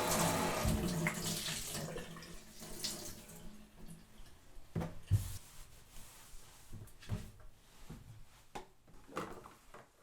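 Kitchen tap running into a sink full of dishes for the first couple of seconds, then fading out. After that come scattered clinks and knocks of dishes, cups and glasses being handled in the sink.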